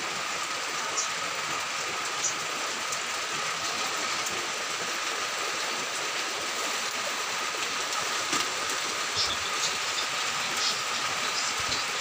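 Steady rain falling on tarpaulin awnings and plastic sheeting, a constant hiss with a few sharp drip taps and a faint steady tone underneath.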